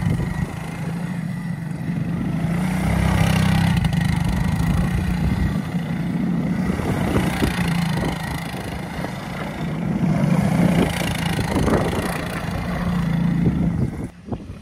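1988 Suzuki Quad Runner 250 ATV's single-cylinder four-stroke engine running as it is ridden across grass. It revs up and eases off several times, loudest about three to four seconds in and again around ten to eleven seconds.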